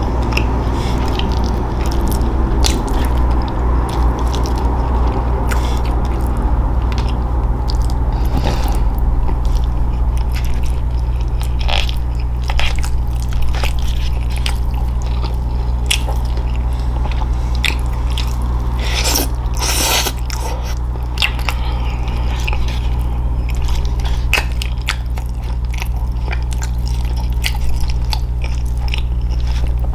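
Close-miked chewing and biting of food, with scattered crunches and a louder run of crunchy bites about two-thirds of the way in, over a steady low hum.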